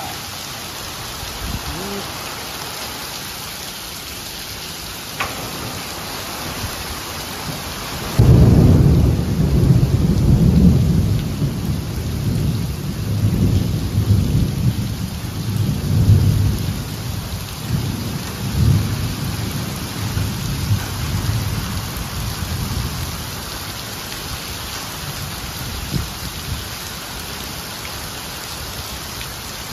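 Heavy rain pouring onto pavement, a steady hiss; about eight seconds in a loud, deep rumble of thunder breaks in and rolls on for some fifteen seconds before fading back under the rain.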